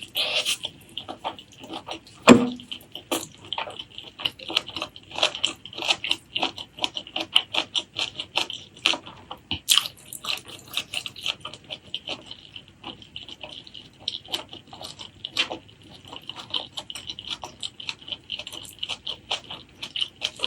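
Close-miked wet chewing and mouth smacking of a person eating pork leg curry with rice, a quick run of small sticky clicks, with one sharper knock about two seconds in.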